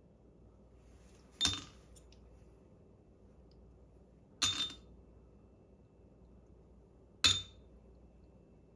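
Ice cubes dropped into an empty drinking glass: three sharp clinks about three seconds apart, each ringing briefly.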